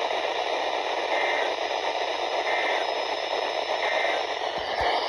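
Radio static: a steady hiss from a weather radio receiver with no voice on the channel. Three faint short beeps come a little over a second apart, and there is a low thump near the end.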